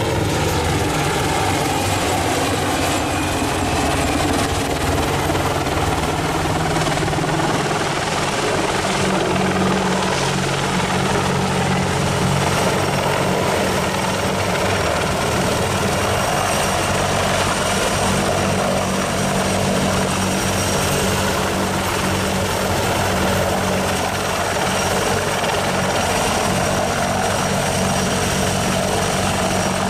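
AH-64D Apache Longbow attack helicopter in flight, its rotors and twin turboshaft engines running steadily and loudly, with a low steady hum and a faint high whine over the rush of the rotors.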